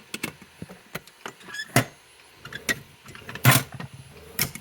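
Irregular sharp clicks and knocks, about seven in all and the loudest about three and a half seconds in, from hand work on a fire alarm device being reset with a hex key.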